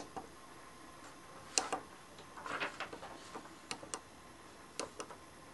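Small tactile push buttons on a pocket digital oscilloscope kit clicking as a finger presses and releases them, often two quick clicks close together, about once a second.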